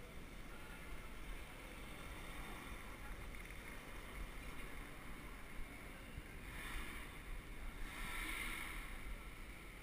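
Wind rumbling on a bicycle head-cam's microphone, with rolling street and traffic noise underneath. Two short swells of hiss come about seven and eight and a half seconds in.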